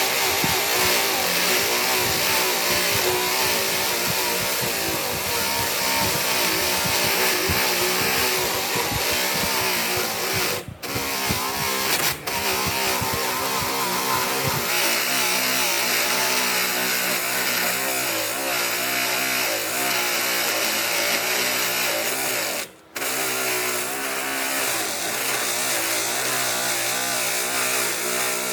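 Power tool running continuously on wood, its pitch wavering as the load changes, with three brief dropouts where the sound breaks off for a moment.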